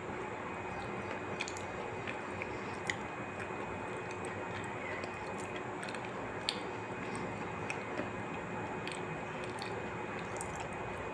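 A person chewing and biting food close to the microphone, with scattered small crunches and clicks over a steady background hiss.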